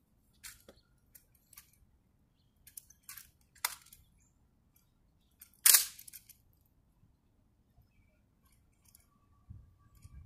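Handling of a ceremonial M14 rifle during a guard's rifle inspection: a few sharp, separate clicks and slaps of hands and metal parts on the rifle, the loudest about six seconds in.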